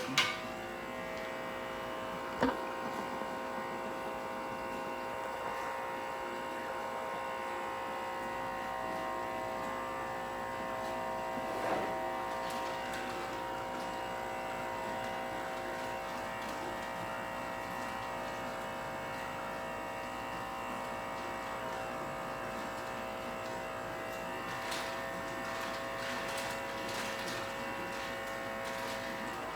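Portable battery air pump buzzing steadily with a fixed, tone-rich drone, with a single sharp click about two and a half seconds in.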